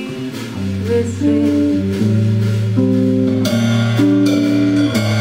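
Live band music: a woman singing with electric guitar and a drum kit, playing held notes that change about once a second. Cymbals and drums come in more strongly about three and a half seconds in.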